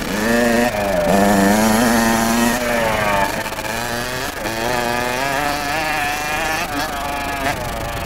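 Kawasaki KX60's small two-stroke single-cylinder engine revving up and down as the bike is ridden around a motocross track, the pitch rising and falling with the throttle. It dips and then rises again about a second in, holds high and loudest for a second or two, then keeps rising and falling.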